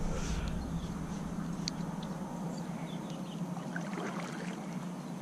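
Small fishing boat under way: a steady low motor hum with water noise against the hull, and a couple of faint clicks.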